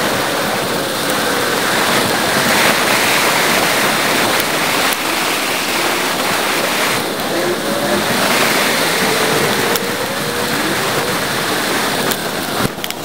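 Steady rushing wind and road noise on a bicycle-mounted camera's microphone, sped up eightfold, with faint gliding chirps and a few brief clicks.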